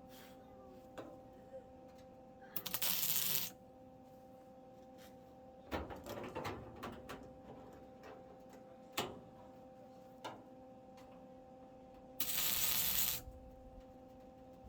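Two MIG tack welds on sheet metal, each a crackling hiss about a second long, one near the start and one near the end. Metal clanks and knocks sound in between, over a steady electrical hum.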